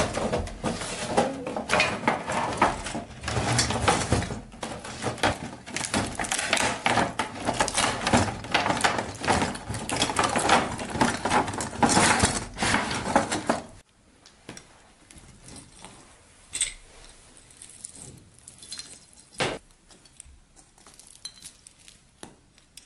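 Clear plastic packaging crackling and Christmas bauble ornaments clinking against each other as a box of them is opened and rummaged through. The handling stops abruptly about two-thirds of the way in, leaving only a few faint clicks.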